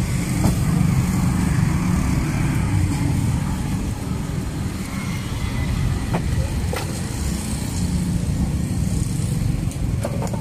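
Steady low rumble of street traffic, with a few short clicks about half a second, six, seven and ten seconds in.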